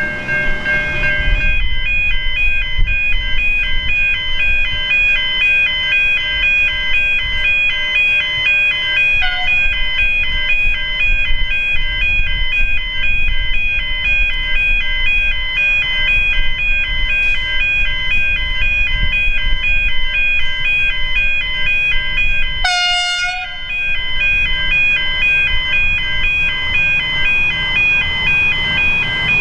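Railway level crossing warning bells ringing steadily, in an even repeating pattern of high tones, over a low rumble, with a short click about two-thirds of the way through.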